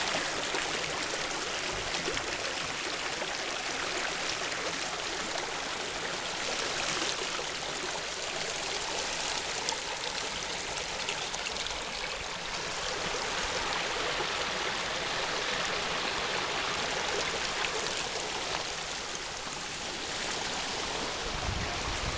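Small rocky creek flowing, with water running and trickling over stones in a steady wash of sound. A few low thuds near the end.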